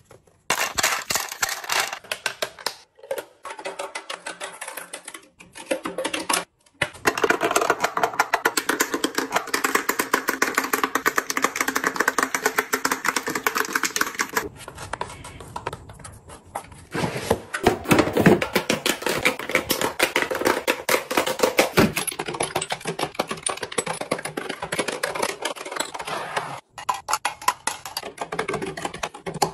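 Rapid clicking and clacking of plastic makeup containers, such as lipstick tubes and bottles, handled and set into clear acrylic organizers. The sound comes in several stretches that cut off abruptly between clips.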